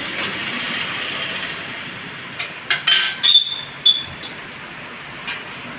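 Tyre-changing work on a car wheel: a steady hiss, then metal tools and the wheel clinking and clattering about two and a half seconds in, with a short high ringing squeal.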